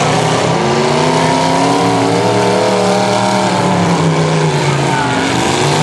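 Demolition derby car engines revving hard in the arena, the engine note climbing, dropping briefly near the end and climbing again.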